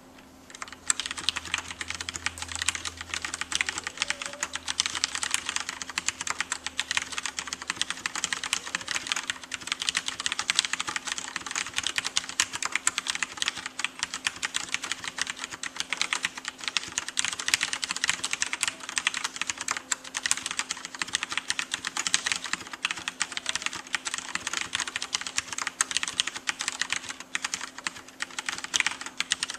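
Continuous fast typing on a Leopold mechanical keyboard with Cherry MX Red linear switches: a dense clatter of key presses that starts about a second in and stops just at the end.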